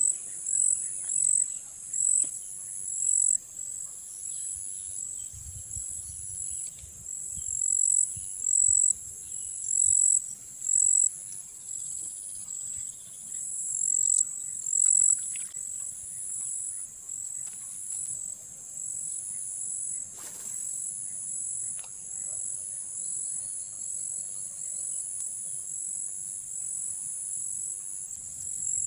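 Insects chirping in the grass: a high-pitched chorus of pulsed trills at two close pitches, going on and off over and over, louder in the first half.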